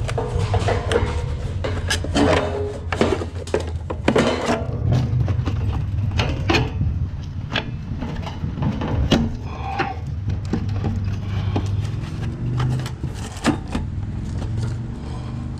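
A bent stainless steel sheet-metal floor piece being test-fitted into a floor opening: repeated knocks, clicks and rattles as it is set and shifted into place, over a steady low hum.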